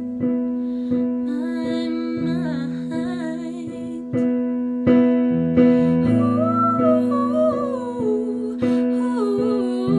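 A woman singing a slow, wavering melody, held notes without clear words, over an instrumental accompaniment of chords struck about once a second and left to ring.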